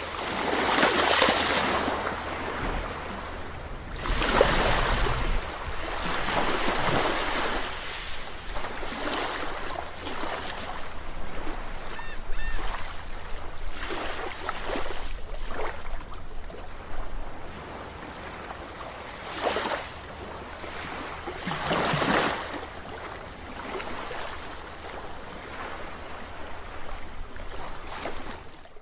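Sea waves breaking and washing up a beach, swelling in repeated surges a few seconds apart, then easing off.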